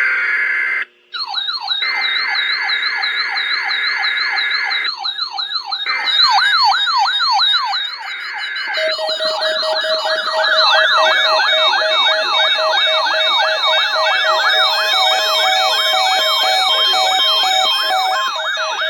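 Electronic siren yelping: rapid falling pitch sweeps about three a second, several overlapping, with a higher wavering tone above them. There is a brief break about a second in, and a steady lower tone joins about nine seconds in.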